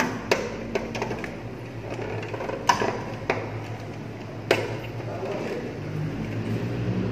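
Hands working on the contactors and thermal overload relay in a motor control panel: irregular sharp clicks and taps of parts and wiring being handled, the loudest a little under three seconds in and about halfway through, over a steady low hum.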